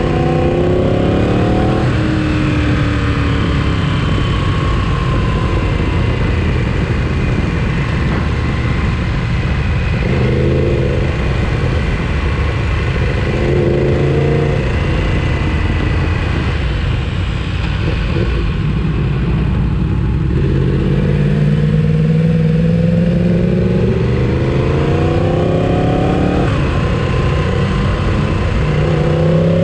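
Sport motorcycle engine accelerating hard through the gears, its pitch climbing and then dropping at each shift, several times over, under a steady rush of noise.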